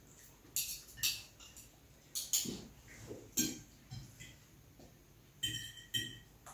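Metal forks and spoons clinking and scraping against ceramic plates as people eat: a scattered series of sharp clinks, the last two near the end ringing briefly.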